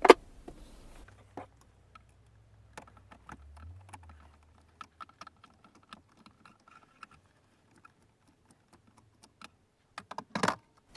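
Screwdriver backing a screw out of the plastic dash panel around the AC controls: irregular small clicks and ticks, with a sharper click at the start and a couple of louder ones near the end.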